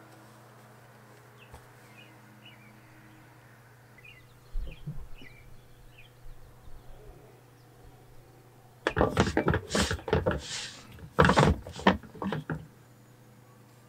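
Knocks, clicks and scraping of hard plastic as the parts of a large blue water-filter housing are handled and fitted together. There is one short knock about a third of the way in and a loud run of knocks and clatter in the last few seconds. Small birds chirp faintly in the background.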